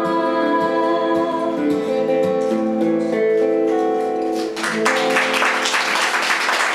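Acoustic and electric guitars playing the last notes of a song and letting a final chord ring, then applause breaks out about four and a half seconds in.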